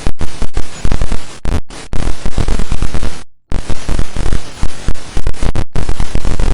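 Digital glitch sound effect: harsh static noise stuttering in rapid choppy pulses, broken by several sudden dropouts to silence.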